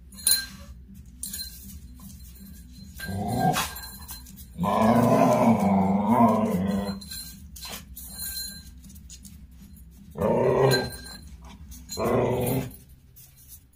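Indian street dog growling while it plays, in four bouts: a short rising one, a loud wavering one of about two seconds, then two short ones near the end.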